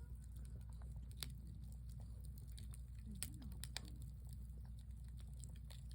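Wood campfire crackling: scattered sharp pops and snaps over a low steady rumble.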